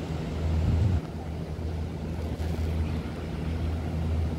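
A low, steady rumble with an even hum underneath, swelling and easing slightly every second or so.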